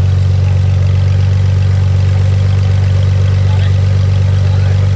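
Modified off-road 4x4's engine running steadily at low revs with no revving, a strong low hum, as the vehicle crawls down a muddy slope.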